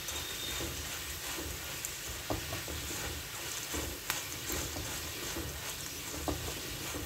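Crisp-fried chana dal being stirred with a silicone spatula in a non-stick kadai, mixing in chili powder and salt: an uneven scraping and rattling of the dal against the pan over a light sizzle of hot oil, with a few sharp clicks.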